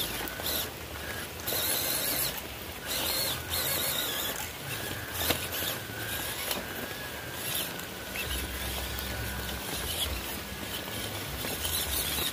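Small electric RC off-road truck driving: a steady high whine from its motor and gears over scratchy crunching of its tyres on dirt and gravel.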